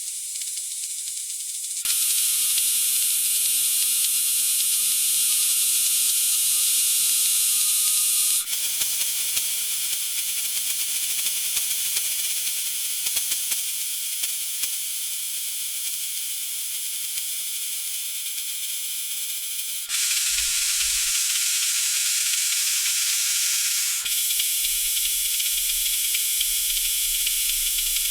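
Food sizzling in a hot frying pan: a steady high-pitched hiss with a few faint crackles. Its loudness jumps or drops suddenly a few times.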